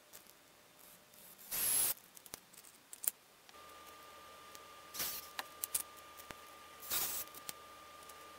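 Small clicks and a few short rustling scrapes of small objects being handled. About three and a half seconds in, a faint steady whine with a low hum starts.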